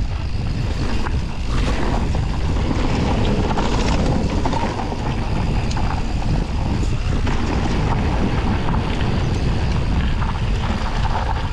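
Downhill mountain bike ridden fast down a dirt trail: wind buffeting the microphone over the rumble of tyres on dirt and the rattle of the bike, with scattered clicks and knocks from bumps.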